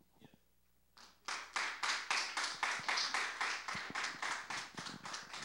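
Congregation applauding. The clapping starts about a second in and keeps going.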